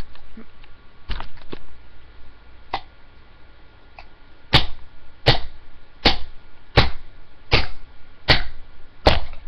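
Hammer blows on a Dell computer mouse to break it open: a few light knocks, then from about halfway on a steady run of seven sharp strikes, a little more than one a second.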